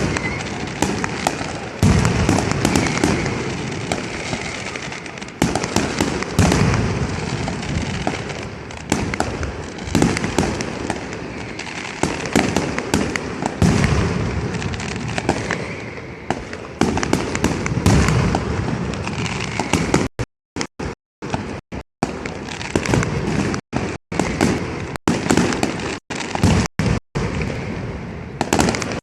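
Fireworks and firecrackers going off in a dense, continuous crackle of rapid bangs, with heavier deep blasts about every four seconds. In the last third the sound cuts out completely for brief moments several times.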